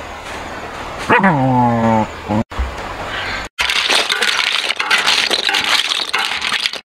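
A dog whines once, a call of about a second falling in pitch. Then snails and crabs roasting in a hot, smoking wok over a wood fire crackle and sizzle, a dense run of small pops and hiss.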